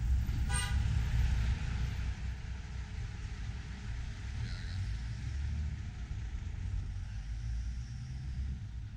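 A car driving, heard from inside the cabin: a steady low rumble of engine and road noise. About half a second in there is one short high-pitched sound.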